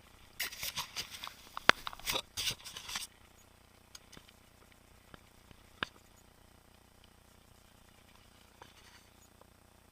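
Mountain bike clattering and rattling over rough trail for about two and a half seconds, with one sharp loud knock in the middle, followed by a few separate clicks and knocks.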